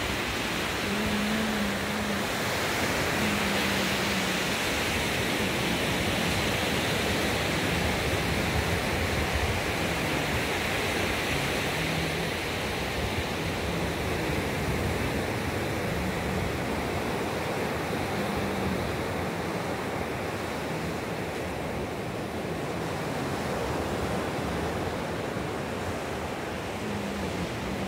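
Sea surf washing onto a sandy beach, a steady rushing noise, with wind buffeting the phone's microphone.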